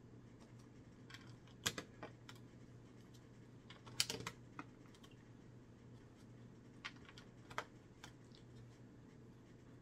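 Scattered sharp plastic clicks of Lego bricks being handled and pressed onto a baseplate, the loudest a short cluster about four seconds in. A faint steady low hum lies underneath.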